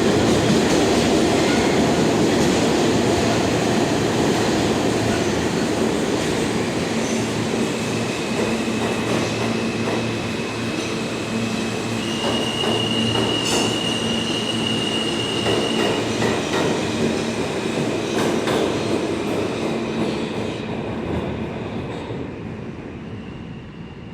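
New York City subway train running through a station, wheels rumbling and clicking over the rail joints, with a high steady wheel squeal from about seven seconds in. The sound fades near the end as the train draws away.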